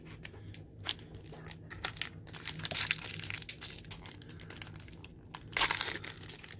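Foil wrapper of a 2018 Panini Prizm football card pack crinkling in the hands and being torn open, with the loudest rip a little after five seconds in.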